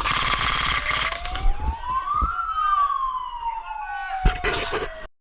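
A siren wails once, rising in pitch for about two seconds and then falling slowly until it stops near the end, over rapid clicking in the first two seconds.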